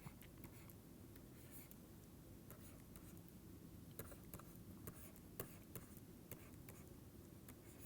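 Faint pen strokes and light taps of writing, a scatter of short scratches and clicks over a quiet room.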